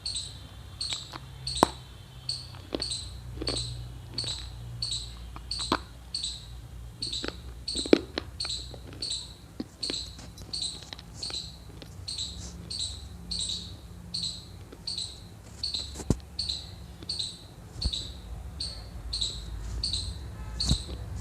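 Dry multani mitti (fuller's earth) being bitten and chewed, giving scattered sharp crunches. Behind them runs a high chirp repeating steadily about one and a half times a second, over a low hum.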